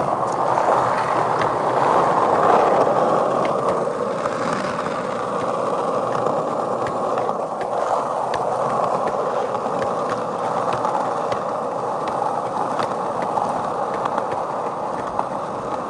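Skateboard wheels rolling steadily over asphalt, a continuous rolling roar with faint scattered ticks along the way.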